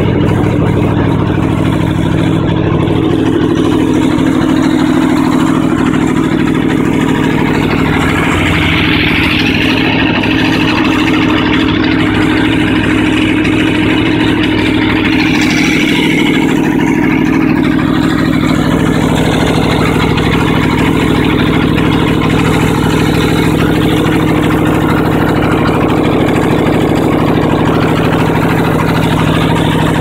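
Aprilia RSV4 1000's V4 engine idling steadily through an aftermarket Race Tech exhaust.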